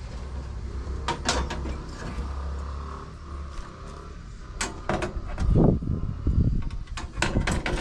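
Knocks and clatters of handling: a couple of sharp knocks about a second in, then a busier run of knocks and clunks from about halfway on, over a low steady rumble in the first half.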